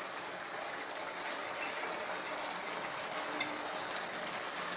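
Pork, carrots and broth simmering in a wok with a steady sizzling hiss, with one light click near the end as chopped cabbage is tipped in.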